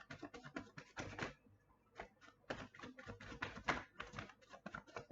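Tarot cards being handled: faint runs of quick card clicks and flicks, several a second, with short pauses between the runs.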